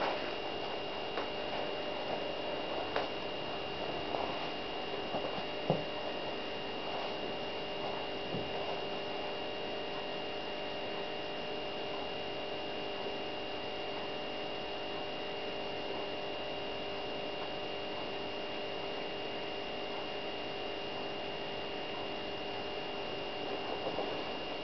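Steady electrical hum with a thin high whine over it, unchanging throughout, and a few faint clicks in the first third.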